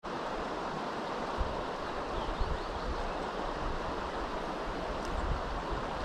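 Steady rush of flowing river water, with wind gusting on the microphone now and then.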